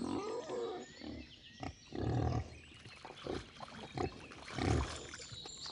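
Wild boar grunting: short, low grunts, the two loudest about two seconds in and near the end, with softer ones between.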